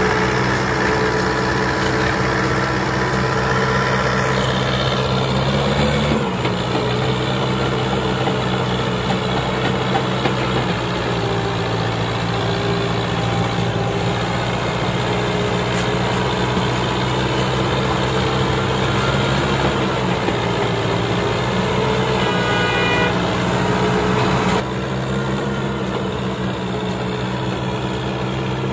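Fiat 640 tractor's diesel engine running steadily under load, pulling a heavy sugarcane-laden trailer. Its note shifts about six seconds in and becomes slightly quieter near the end.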